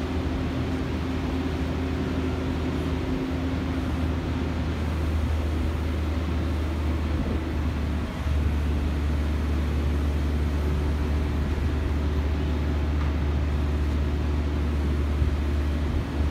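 Mobile crane's engine running steadily under load with a low drone, the pitch shifting and the level rising slightly about halfway through.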